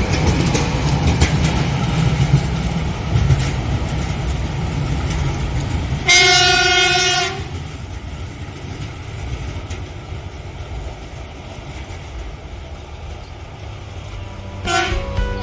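Plasser & Theurer 09-32 CSM track tamping machine rolling past on the rails, its diesel engine running with a steady low rumble. About six seconds in, a single horn blast sounds, one held note lasting just over a second, after which the machinery is quieter.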